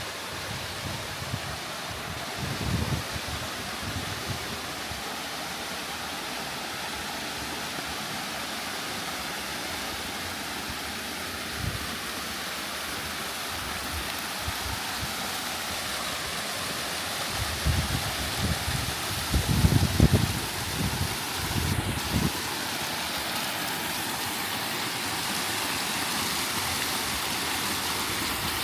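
Small desert waterfall splashing down a rock wall in a steady rush of water. A few low rumbles of wind buffet the microphone, mostly about two-thirds of the way through.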